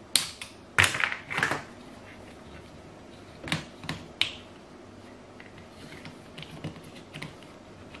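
Sharp clicks and knocks of a screwdriver and a metal jubilee clip being worked on a plastic washing-machine drain hose joint. A cluster of loud clicks comes in the first second and a half, three more follow around the middle, then fainter ticks.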